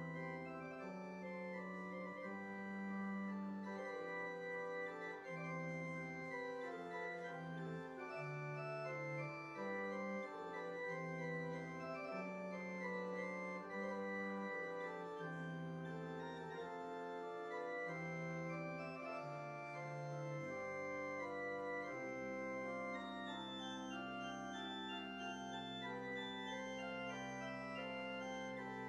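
Organ prelude: slow held chords over a bass line that steps from note to note, settling onto one long-held low chord about three quarters of the way through.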